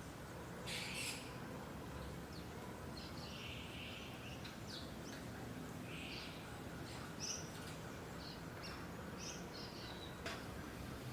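Wild birds chirping and calling in short, scattered notes, the loudest about a second in, over a steady low background hiss.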